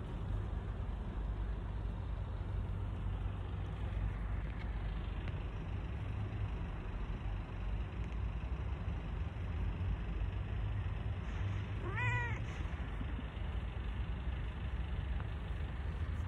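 A young stray kitten gives one short meow, rising then falling in pitch, about three-quarters of the way through, over a steady low rumble.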